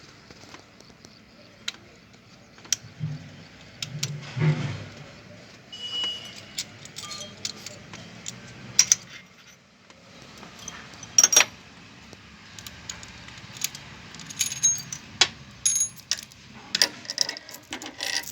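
Irregular metallic clinks and clicks of hand tools and loose engine parts, with a brief low rumble about three to five seconds in. This is hands-on work during a timing chain replacement on a Maruti Swift Dzire engine.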